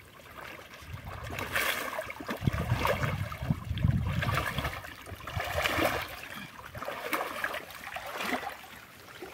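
Shallow pond water sloshing and splashing in irregular bursts, stirred up by people working in it, with a low rumble about two and a half to four and a half seconds in.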